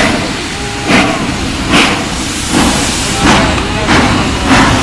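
Ol12 steam locomotive pulling away: its exhaust chuffs come about one a second at first and speed up slightly, over a steady hiss of steam.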